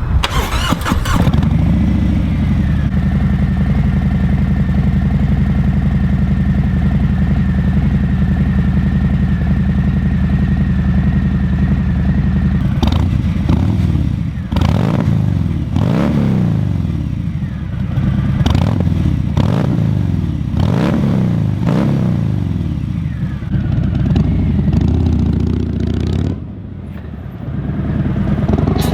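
Harley-Davidson Fat Bob's Milwaukee-Eight V-twin breathing through S&S Grand National slip-on mufflers, idling steadily, then blipped through a series of about seven quick revs in the second half.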